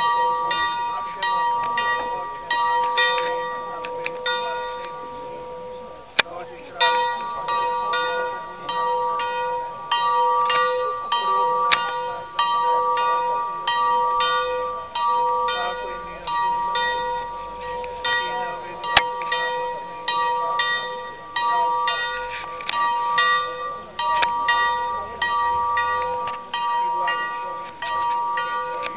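Small cemetery bell rung by hand, tolled for the dead: its clapper strikes about once a second, each stroke renewing a steady ringing tone. The ringing falters for about two seconds near the start, then goes on.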